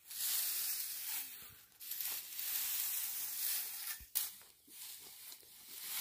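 Dry hay rustling and swishing as a wooden pitchfork rakes and tosses it, in three long sweeps, with a sharp knock about four seconds in.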